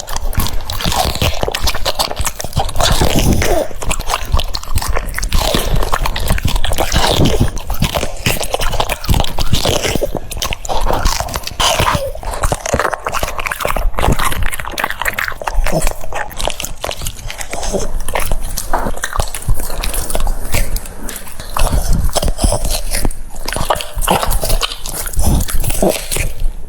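French Bulldog eating, with a quick, irregular run of biting and crunching chews and wet mouth smacks that never stops.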